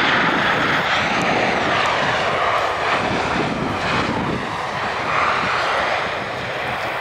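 Boeing 737-800's CFM56 turbofan engines running loud as the airliner rolls out after touchdown: a steady jet roar that swells a few times.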